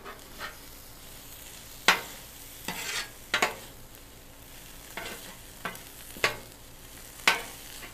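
Teriyaki chicken pieces sizzling on a Blackstone steel flat-top griddle while two metal spatulas scrape and clack against the cooktop, with several sharp clacks spread through.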